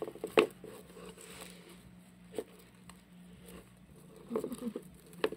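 Scattered soft knocks and scuffs as a cat rubs its head against a Reeve's turtle's shell on a cardboard scratcher and wooden floor, the sharpest knock about half a second in. A faint steady low hum runs underneath.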